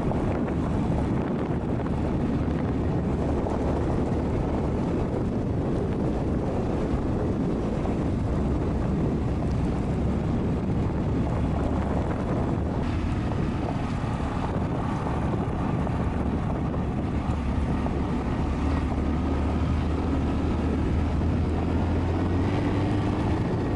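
Honda Monkey 125 motorcycle's small air-cooled single-cylinder engine running under way, largely buried in heavy wind rush on the microphone. The engine note rises slowly near the end.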